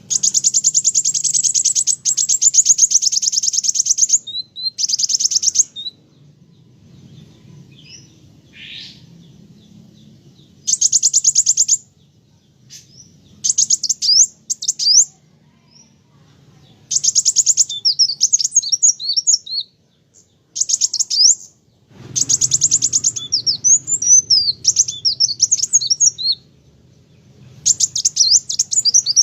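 Kolibri wulung sunbird singing in bursts of high, rapid trills that give way to quick twittering, darting notes, with short pauses between phrases.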